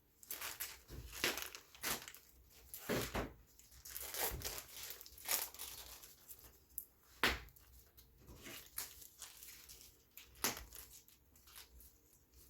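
Product packaging being handled and torn open by hand: irregular crinkling, crackling and tearing, with a few sharper crackles.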